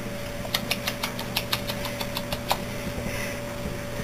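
Crinkly plastic toy crackling as puppies play with it: about a dozen sharp crinkles over two seconds, then it stops. A steady low hum runs underneath.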